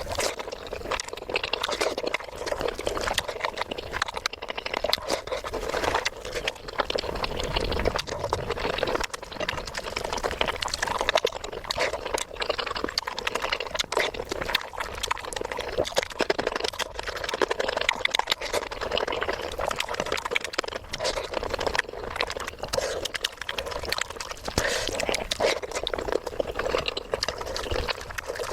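Close-miked eating: wet chewing, smacking and slurping of food, a dense run of irregular wet clicks with no pause.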